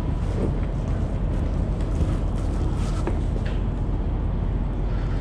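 Steady low rumble of background noise, with a few faint clicks and knocks.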